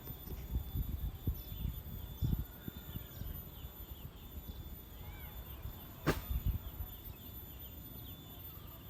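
Birds calling faintly in many short chirps, with one longer curved call about five seconds in. Low rumbling noise comes and goes in the first few seconds, and there is a sharp click about six seconds in.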